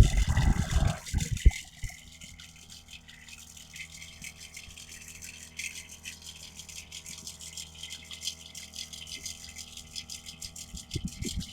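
Powered knapsack sprayer's pump running with a steady low hum and a light rattle, after loud bumps and knocks in the first second or so.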